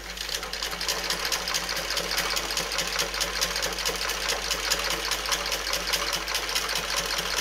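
Single-needle domestic sewing machine running steadily with a rapid, even stitching rhythm as it sews a rolled hem through a rolled hemming foot.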